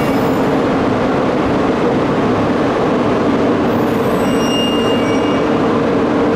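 E2 series Shinkansen standing at the platform, its onboard equipment running with a steady, even hum made of two low tones. A faint high tone sounds briefly about four seconds in.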